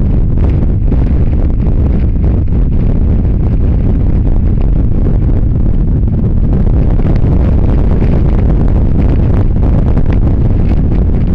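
Heavy wind buffeting on a camera's built-in microphone while riding a Kawasaki GTR1400 motorcycle at road speed: a loud, steady low rumble.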